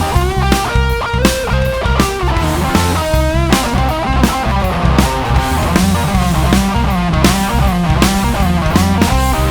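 Rock band playing at full volume: an electric guitar plays a lead line with bent, wavering notes over bass guitar and a drum kit keeping a steady beat.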